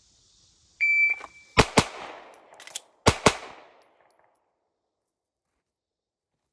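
Shot timer start beep, then four pistol shots fired in two quick pairs about a second and a half apart.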